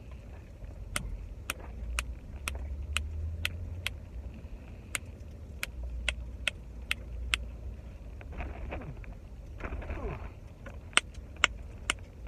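A rainbow plastic snapper fidget toy being twisted, giving sharp clicks about twice a second, over the low rumble of a car cabin. The clicks pause for a few seconds, with a couple of rustles, and then come back as three louder clicks near the end.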